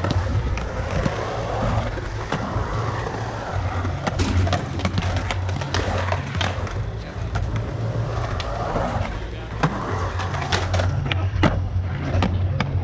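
Skateboard wheels rolling and carving around a concrete pool bowl, the rolling swelling and fading several times as the board sweeps up and down the walls, with scattered sharp clacks and knocks of the board and trucks.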